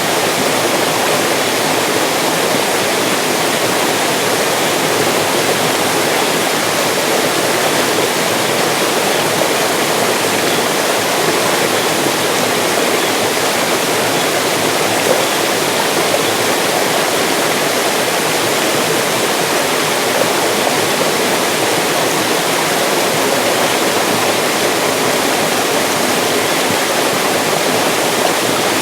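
Mountain stream rushing and splashing over rocks, a steady full rush of water without let-up.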